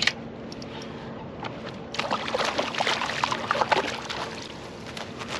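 Water splashing and sloshing beside a kayak as a hooked fish thrashes at the surface and is scooped into a landing net, loudest in the middle and tailing off near the end. A sharp click at the very start, over a faint steady hum.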